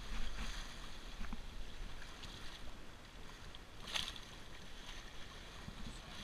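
Water rushing and splashing along the hull of a heeled sailboat moving under sail, over a steady low rumble. A brief sharp slap about four seconds in.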